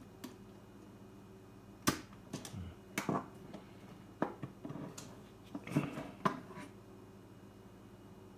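Scattered light clicks and taps, about seven of them, of small plastic parts being handled and worked loose while a car radio's display unit is taken apart, over a faint steady hum.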